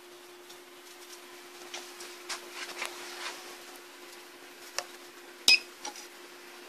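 Small clicks and light knocks of hands working the cable and switch of a 12 V-to-220 V inverter, then a sharp click about five and a half seconds in as the inverter is switched on. A steady faint hum runs underneath.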